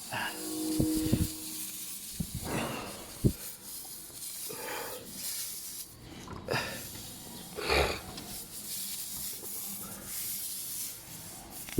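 Tyre-plug repair work: a ringing metal clink and a few sharp knocks in the first few seconds, then short breathy hisses every second or two.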